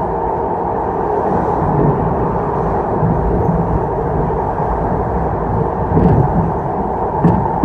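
ED4M electric multiple unit running along the track with a steady rumble, broken by two knocks from the wheels about six seconds in and again just after seven seconds.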